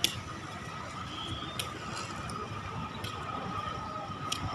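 Open-air city street ambience: a steady low rumble of traffic, a steady high tone held throughout, and three sharp clicks about a second and a half apart.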